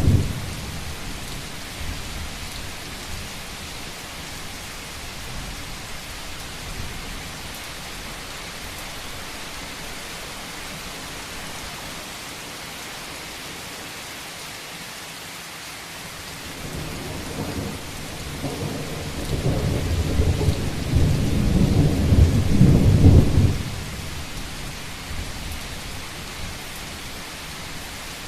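Steady rain pattering on a rooftop, with a deep roll of thunder that builds about two-thirds of the way through and stops suddenly shortly after. A loud rumble also breaks off right at the start.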